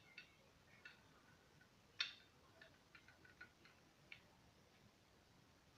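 Faint clicks of beads knocking together as a beaded strand is handled: one sharper click about two seconds in, then a few light ticks.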